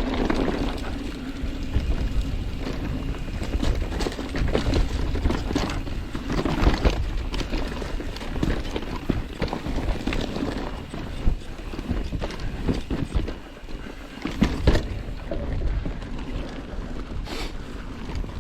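Mountain bike riding over a dirt singletrack trail: tyres rolling on the dirt and the bike rattling and knocking over bumps and roots, a steady stream of clatter with a low rumble under it.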